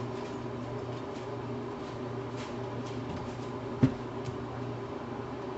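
Steady low mechanical hum, with one sharp knock a little before four seconds in.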